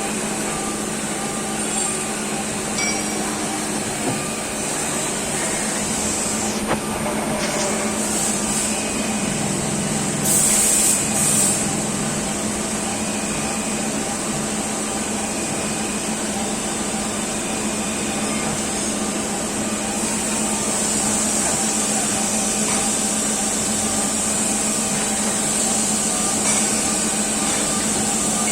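Mori Seiki AL-2BM CNC lathe running, a steady machine hum with a constant high whine, and two short louder bursts of noise about ten to eleven seconds in.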